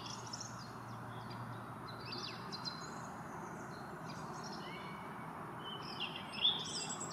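Small songbirds singing: short, high twittering and chirping phrases that overlap one another, the loudest a little past six seconds in, over a steady background hiss.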